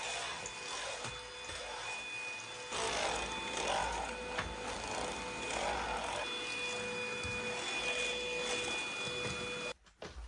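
Cordless stick vacuum cleaner running over a wooden floor, a steady motor whine that cuts off suddenly near the end.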